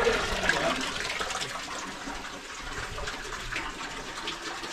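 Engine oil draining in a steady stream from the Caterpillar 773B's diesel engine, splashing into a funnel and drain pan below.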